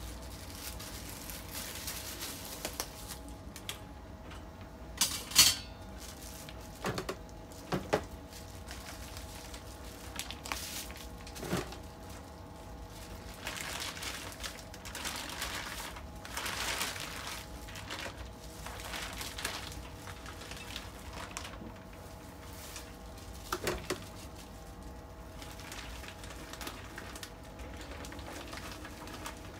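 Plastic packaging bags rustling and crinkling as they are opened and handled with gloved hands, with a few sharp knocks scattered through, the loudest about five seconds in.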